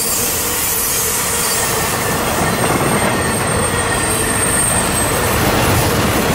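A Florida East Coast intermodal freight train's container well cars rolling past at speed: a steady, loud rush of steel wheels on rail, with a thin high wheel squeal from about three seconds in for a couple of seconds.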